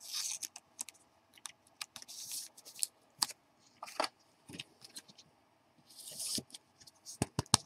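A trading card being slid into a thin plastic penny sleeve and then into a rigid clear plastic holder: soft plastic rustles and sliding swishes, with scattered light clicks and taps of card and plastic, several in quick succession near the end.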